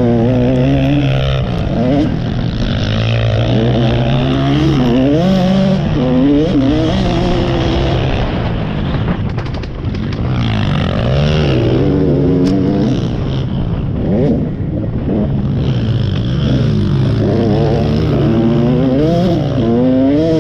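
KTM 85 motocross bike's two-stroke single-cylinder engine being ridden hard, its pitch rising and falling again and again with throttle and gear changes. About halfway through it backs off briefly before picking up again.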